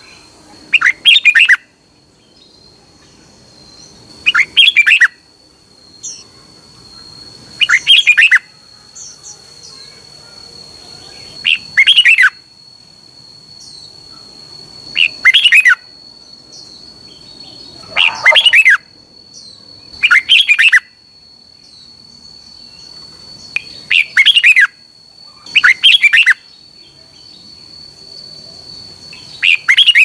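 Red-whiskered bulbul singing short, loud phrases under a second long, repeated about every three seconds, around ten in all, over a steady, thin, high whine.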